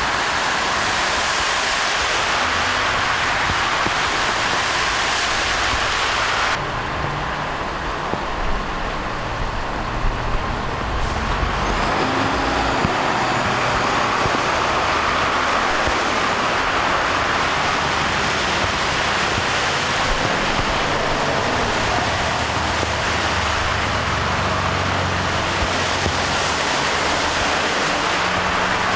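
Cars and trucks driving through a flooded street, their engines running under the steady hiss of tyres ploughing through deep water and throwing up spray. The hiss turns duller for a few seconds about a quarter of the way in.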